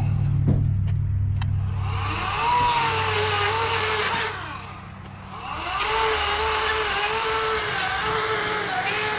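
EGO 18-inch 56-volt battery chainsaw cutting through a log, its electric motor giving a steady whine that wavers in pitch. A little past the middle the sound drops away for about a second, then the motor comes back up and keeps cutting.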